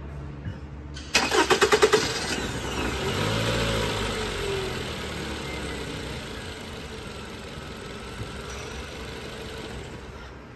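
Toyota RAV4 engine being started: about a second of starter cranking, then it catches, the revs flare up and fall back, and it settles into a steady idle. The start is part of a fuel pressure test on an engine whose fuel pressure leaks away from somewhere, the suspected cause of its long starting.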